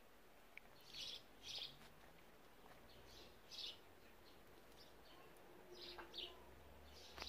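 Faint bird chirps: about six short, high calls spaced irregularly a second or two apart.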